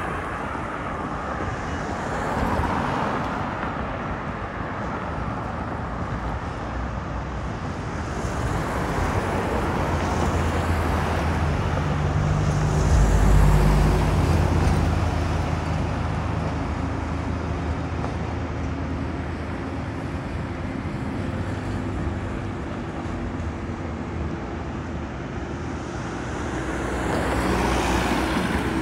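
Road traffic with vehicles passing one after another over a steady background rush. The loudest pass comes about halfway through, with a low engine hum, and another vehicle passes near the end.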